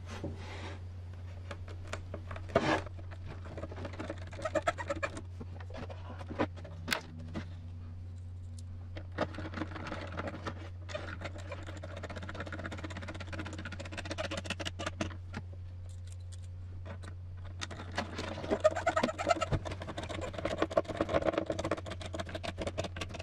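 Small hand screwdriver driving 3x8 screws into a hard plastic RC truck body: irregular clicks and ticks, with stretches of scraping as the screws turn, over a steady low hum.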